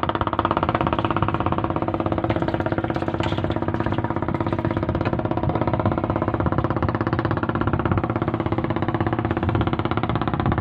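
An engine running steadily at an even speed, with a fast regular pulse throughout.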